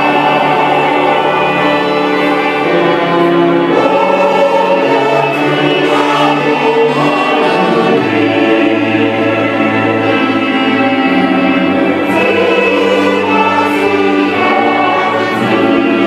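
Church choir of mixed men's and women's voices singing a hymn, holding sustained chords that change every second or two.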